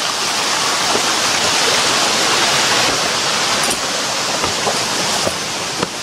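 Steady rush of stream water running and cascading over rocks, with a few faint knocks in the second half.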